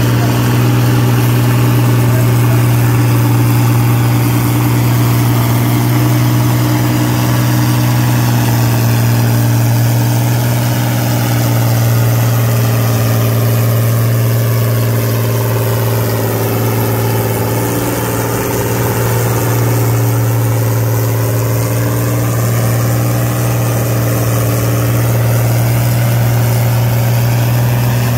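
Antique farm tractor engine running loud and steady at an even pitch, with a hollow sweeping change in tone about halfway through.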